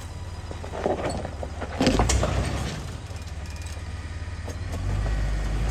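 Jeep Wrangler engine rumbling low as it crawls up a rock ledge, throttle rising about two seconds in and again near the end, with rocks crunching and scraping under the tyres.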